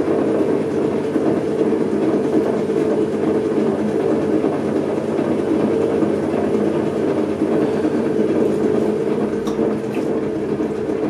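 Electric potter's wheel spinning with a steady hum while a pad of wet clay is spread out across its wheel head.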